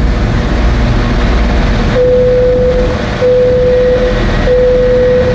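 Low rumble of a train at a station platform. Three long electronic beeps on one steady tone, each about a second long, start about two seconds in.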